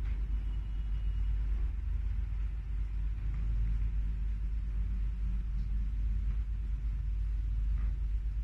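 A steady low rumble that stays at an even level throughout.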